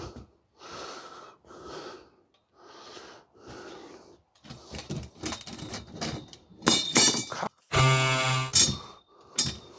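Heavy, rhythmic breathing of someone straining, then clicks and clattering of greenhouse frame parts being forced together, with a short buzzing creak about eight seconds in.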